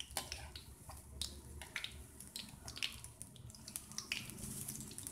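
Goli baje batter balls deep-frying in hot oil in a kadai: a steady sizzle with frequent sharp pops and crackles.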